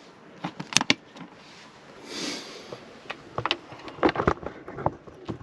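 Irregular clicks and light knocks of hands and parts at work on a car's diesel fuel filter, with a brief soft hiss about two seconds in.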